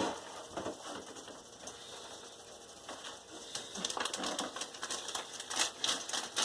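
Plastic quart-size freezer bag being handled, rustling and crinkling with many small irregular clicks, sparse at first and busier in the second half.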